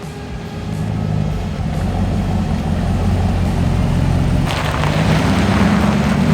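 2021 Ram 1500's engine running through a newly fitted Redback Extreme dual 3-inch exhaust, getting louder over the first couple of seconds; about four and a half seconds in a rushing noise joins the exhaust note.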